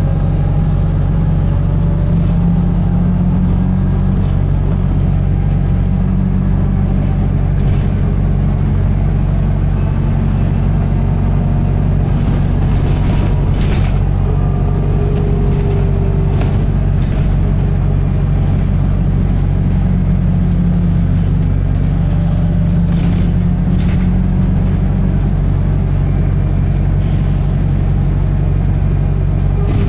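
A New Bus for London diesel-electric hybrid double-decker running, heard from inside the passenger cabin: a steady low drone, with a hum just above it that wavers slowly. Light rattles and clicks from the cabin come and go, a few of them about halfway through and again near the end.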